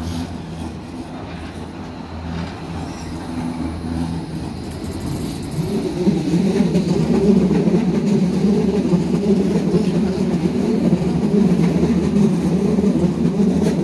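Hamburg U-Bahn train running past at close range along the platform. A steady low hum grows about six seconds in into a loud, even rumble of wheels and running gear as the carriages go by.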